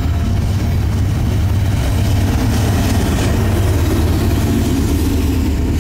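Norfolk Southern manifest freight train passing at a grade crossing: a mid-train diesel locomotive goes by with a steady, loud low engine drone over the noise of the rolling freight cars.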